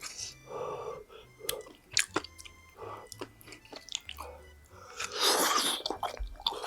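A person chewing food close to the microphone, with sharp wet mouth clicks and soft squelches, and a louder, longer noisy stretch about five seconds in.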